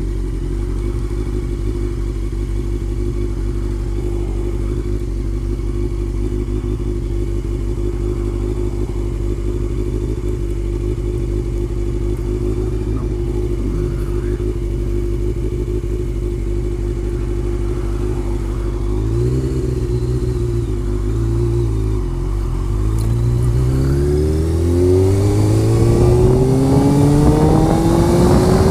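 Honda CBR motorcycle engine idling steadily, with a few light throttle blips about two-thirds of the way in, then rising in pitch as the bike pulls away and accelerates near the end.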